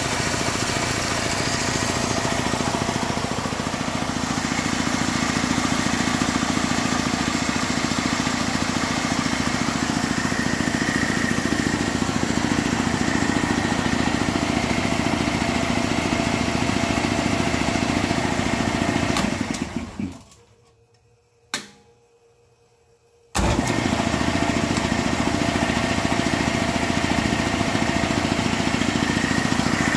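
Bauer K-14 high-pressure piston compressor, belt-driven by an electric motor, running steadily while building pressure. About twenty seconds in it winds down to near silence, a single click is heard, and about three seconds later it starts running again abruptly.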